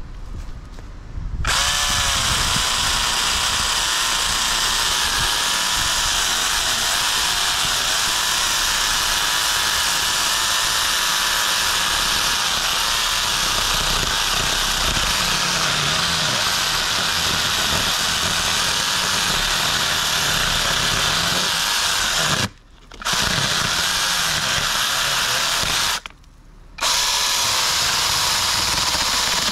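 AUTDER 6-inch cordless mini chainsaw with a brushless motor cutting through a tree limb: a steady high-pitched motor whine with the chain rasping through the wood. It spins up with a rising pitch about a second and a half in, and stops briefly twice near the end before starting again.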